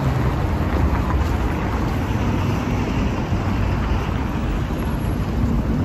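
Steady city street noise from car traffic driving along a multi-lane road, a constant low rumble with no single event standing out.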